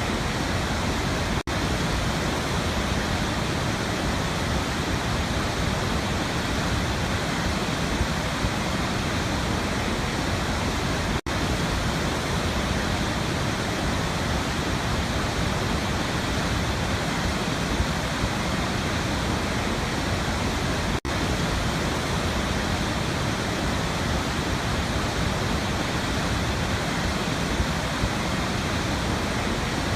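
Waterfall rushing, a steady even roar of falling water, broken by very short dropouts about every ten seconds where the recording loops.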